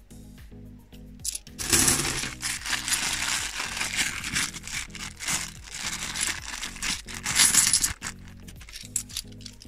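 Bimetallic £2 coins clinking together and a clear plastic coin bag crinkling as they are handled, from about two seconds in until about eight seconds in, over background music.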